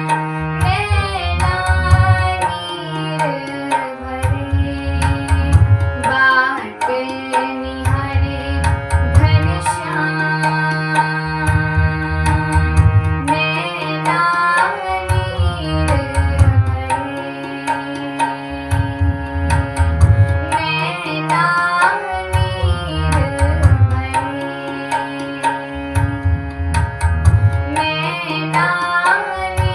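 Indian devotional bhajan music with tabla playing a steady rhythm under a sliding, ornamented melody over held drone notes.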